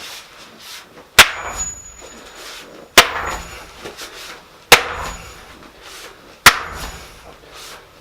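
Four heavy strikes of a metal tamping bar, evenly spaced about two seconds apart, each with a short clanging ring: packing the earth down around a log set in a hole.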